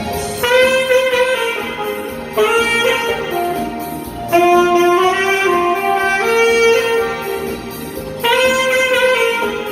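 Music: a solo melody of long held notes in slow phrases, over soft backing accompaniment.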